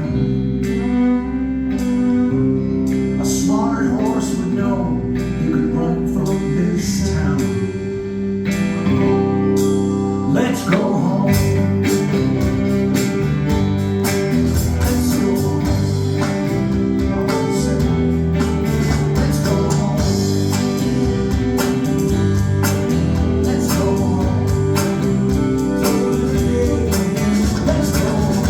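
Live band music with guitar, played steadily with a regular run of sharp strikes.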